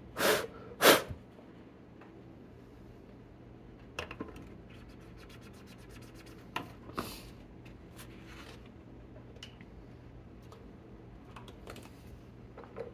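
Vinegar being worked onto a corroded circuit board to neutralize alkaline battery leakage: two short, loud hissing bursts right at the start, then light scratching and scattered small clicks on the board.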